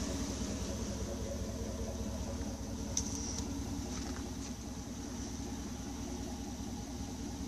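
2011 GMC Yukon Denali's 6.2-litre V8 idling steadily.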